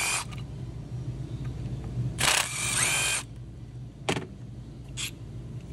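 Small cordless power driver spinning a T30 Torx bit in two short runs, backing out the bolts of the ignition coil cover: a brief whir at the start and a longer one of about a second starting two seconds in, its pitch rising as it runs. A couple of light knocks follow, over a steady low hum.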